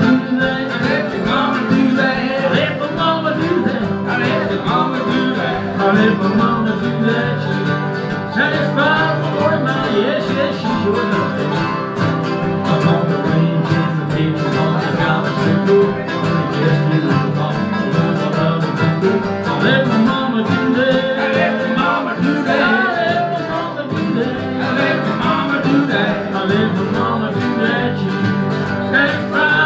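Acoustic string band playing a song: mandolin, two acoustic guitars and banjo strummed and picked together.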